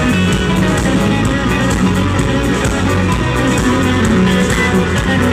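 Southern rock band playing live, electric guitars to the fore over bass and drums with regular drum and cymbal hits, loud and steady.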